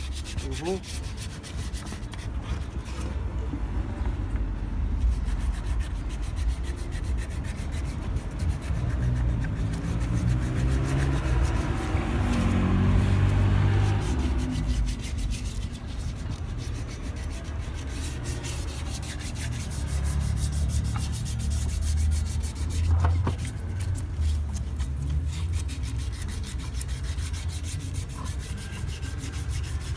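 Hand wet-sanding of an aluminum wheel rim with 240-grit sandpaper wrapped in a rag: a continuous scrubbing rub over the metal, swelling louder about midway. It is the surface prep that roughens the rim so paint will stick.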